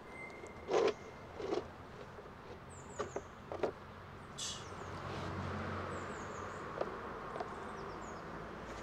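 A few soft knocks and a short scrape as sheets of plywood and board are shifted and lined up on cobblestones, with faint high chirping in the background.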